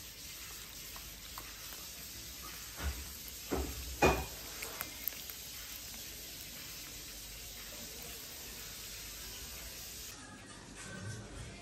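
Water pouring in a thin stream into a bowl of dried porcini mushroom slices, a steady splashing hiss that stops near the end. A few dull knocks come about three to four seconds in, the loudest just after four seconds.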